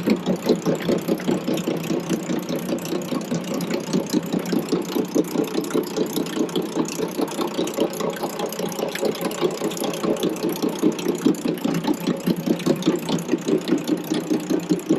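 Grain-bin paddle sweep demonstrator running, its drive and paddles making a steady mechanical beat of about four or five pulses a second.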